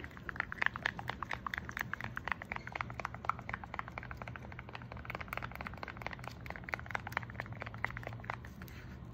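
Quick, irregular scratchy clicking of thick metallic gold acrylic paint being scraped and dabbed out of a small plastic cup, over a steady low room hum.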